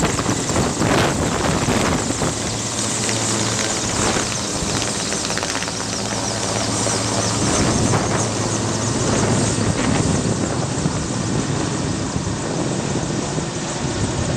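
Mi-8 military transport helicopter flying low overhead, its main rotor and twin turboshaft engines running with a steady dense noise and a low hum.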